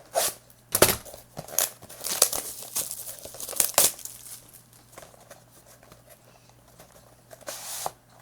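Packaging being torn and crinkled as a sealed box of trading cards is opened. There is a run of sharp tears and rustles in the first few seconds, a quieter stretch, then another crinkle near the end.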